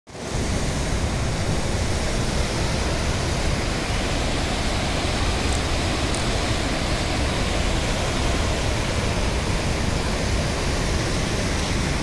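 Steady rushing of a swollen, muddy river in flood, an even noise that starts about a quarter second in and holds without a break.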